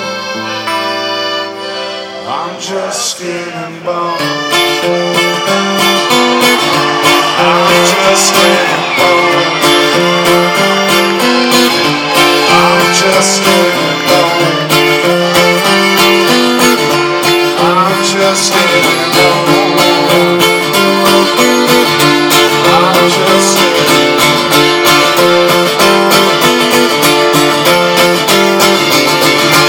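Live band playing an instrumental break: strummed acoustic guitar with accordion over a steady beat. It starts softer and comes in louder and fuller about four seconds in.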